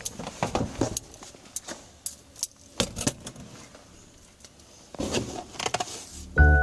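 Keys jangling with scattered small clicks and rustles of hands searching along a police car's hard plastic rear seat. Music comes in just before the end.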